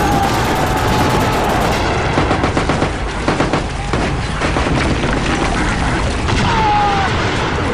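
Battle sound effects: a dense, continuous din of rifle and machine-gun fire, with a short falling whistle near the end.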